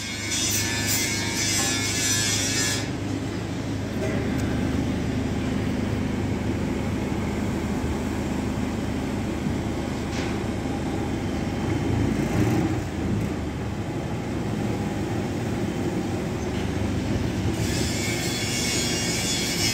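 Large industrial welding power source running with a steady low hum from its transformer and cooling fan. Hissing noise sits over it for the first few seconds and returns near the end.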